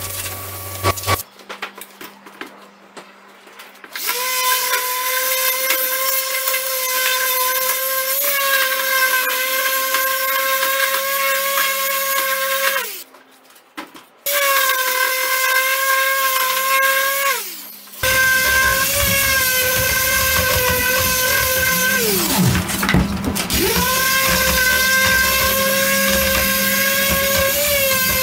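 Handheld electric power tool running with a steady high whine. It stops briefly twice, winding down once with falling pitch, then restarts. Its pitch sags for a moment as it is pressed into the work and then comes back up.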